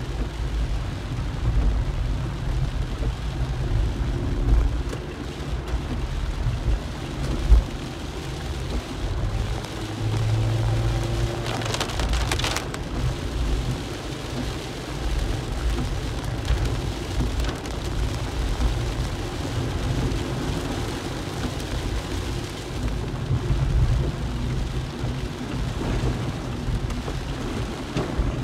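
Rain on a small car, heard from inside the cabin over the low rumble of the engine and tyres on the wet road; a brief louder rush of hiss about twelve seconds in.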